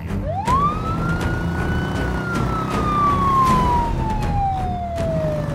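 Police siren sounding one long wail: the pitch climbs quickly, holds high for about a second, then slowly falls.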